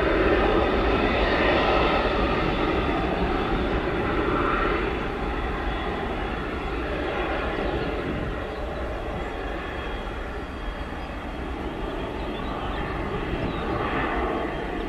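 Small twin-engined business jet's turbofans at takeoff power during the takeoff roll: a steady rumble with a high, multi-toned whine, loudest in the first few seconds and swelling again near the end.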